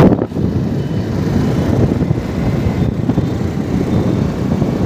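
Motorcycle on the move, heard from the rider's seat: a steady low rumble and rush of engine and road noise, with one sharp knock right at the start.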